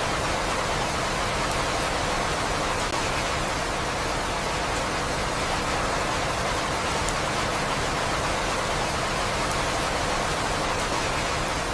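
Steady, even rain noise, a constant hiss with no single drops or pauses standing out.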